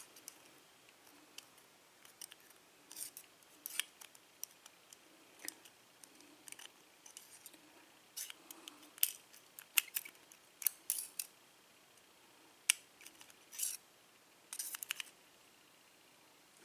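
Steel tweezers clicking and scraping against a euro lock cylinder's plug and its small pin tumblers as the pins are picked out. The sound is scattered light, sharp metallic clicks at an irregular pace.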